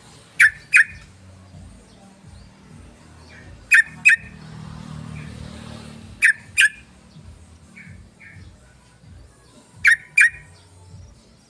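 Yellow-vented bulbul (trucukan) calling: four pairs of short, sharp notes, the two notes of each pair close together and the pairs a few seconds apart, over a faint low hum.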